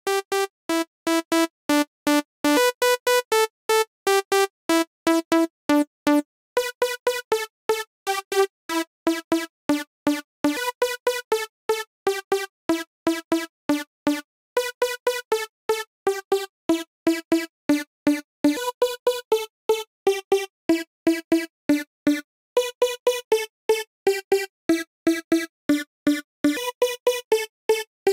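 Novation V-Station software synthesizer playing a chillout lead patch: a looping phrase of short, staccato notes, about three to four a second, bright with overtones. Its oscillator and filter settings are being changed as it plays.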